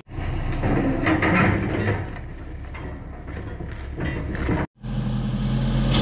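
Komatsu D155A crawler bulldozer's diesel engine running under load, with steel tracks clanking and grinding as it crawls down the trailer ramp. The sound drops out briefly about three-quarters of the way through, then comes back as a steadier engine drone.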